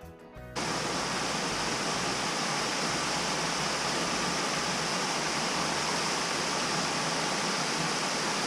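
Waterfall: a steady, unbroken rush of falling water, after background music cuts off about half a second in.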